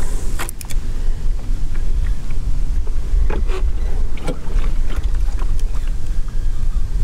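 Wind buffeting the camera microphone, a loud, steady low rumble, with a few faint clicks and knocks through it.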